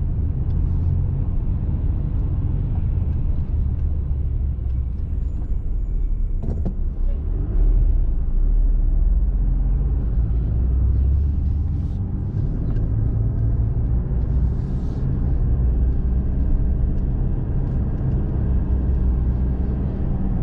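Car driving at road speed, heard from inside the cabin: a steady low rumble of engine and tyre noise, with a single click about six and a half seconds in.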